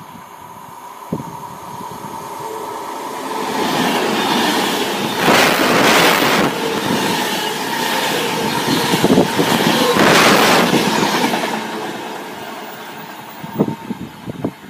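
Class 390 Pendolino nine-car electric train passing close at speed: a rush of wheels on rail and air that builds over the first few seconds, stays loud while the carriages go by, then fades. Wind buffets the microphone, giving two very loud surges mid-pass.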